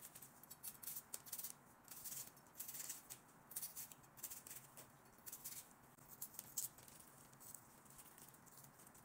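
Knife slicing through a raw onion: faint, irregular crisp crunches and snips.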